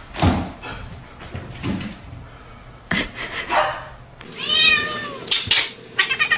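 A cat meows once, a long call that rises and falls in pitch, about four seconds in, among a few short knocks and scuffs.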